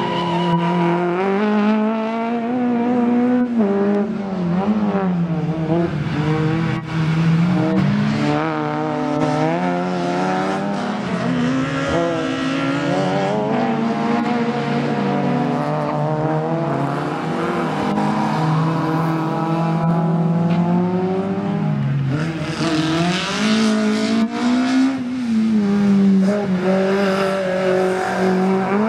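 Small racing hatchback engines being worked hard around a circuit, revving up and falling back again and again as the cars accelerate, brake and change gear. Tyres squeal in the corners, most plainly about two-thirds of the way through.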